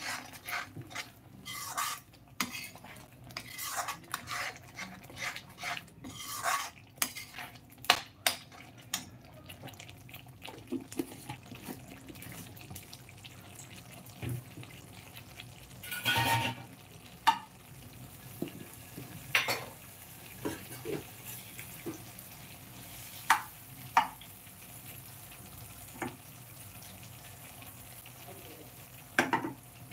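Perforated metal spoon stirring and scraping ground masala paste in a metal kadai, with frequent clinks against the pan for the first ten seconds or so, then only occasional knocks. A faint sizzle of the paste frying runs underneath.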